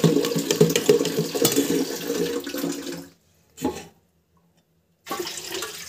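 A metal spoon stirring thick idli batter in a steel vessel: wet sloshing with small scrapes and clicks against the pot. It breaks off suddenly about three seconds in, leaving about two seconds of silence with one short blip, and starts again near the end.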